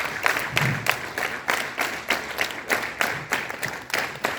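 A large group of students clapping their hands together in rhythm on a drill command, about four claps a second.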